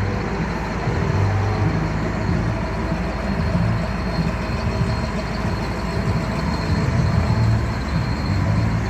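A truck running on the road, with a steady engine rumble and road noise that swells slightly now and then.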